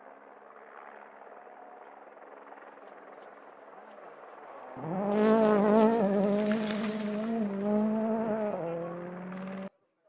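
A rally car's engine is faintly heard at first. About halfway through it comes in suddenly and loud at high revs, and the note wavers and drops a little before cutting off abruptly near the end.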